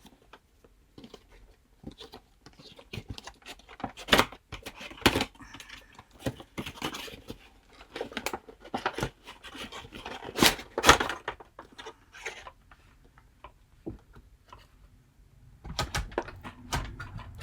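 Cardboard box and plastic blister tray of a boxed action figure being handled and pulled open, making irregular crinkles, clicks and taps, with a short lull about two-thirds through.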